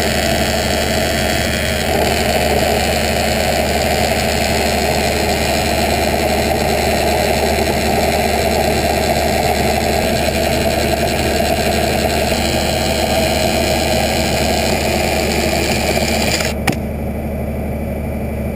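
Hydraulic chainsaw with a 50-inch bar cutting through a large log, its chain badly dull, over the steady running of the tractor engine that drives the hydraulics. About sixteen and a half seconds in, the cutting noise stops suddenly, leaving the lower engine hum.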